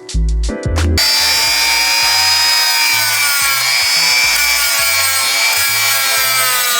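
A high-speed power grinding tool working the metal of a Harley Sportster cylinder head, smoothing out damage, starting about a second in; its high whine sags in pitch as it bites. A bass-heavy music track runs underneath.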